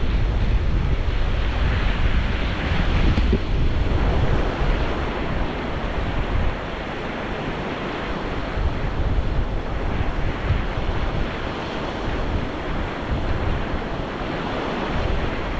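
Surf washing onto the beach, with wind rumbling on the microphone. The rumble is heavier for the first six seconds or so, then eases.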